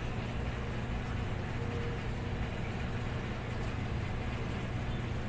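A steady low machine hum holding one pitch throughout, over a constant background rumble.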